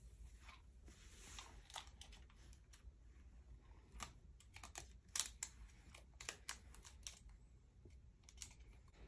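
Faint scattered clicks and taps of a baby handling plastic game controllers, pressing buttons and knocking the casings, most frequent between about four and seven seconds in.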